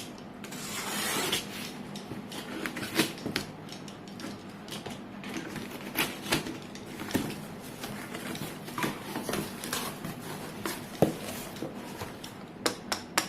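A cardboard box being opened and its packaging handled by hand. A drawn-out tearing sound comes about a second in, then scattered taps, knocks and rustles of cardboard.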